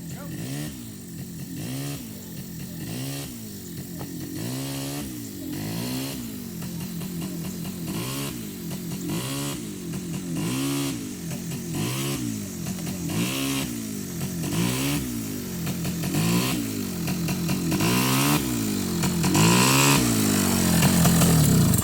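Small ATV engine running, its pitch rising and falling over and over, about every one and a half to two seconds, as the throttle is worked on and off; it grows louder toward the end.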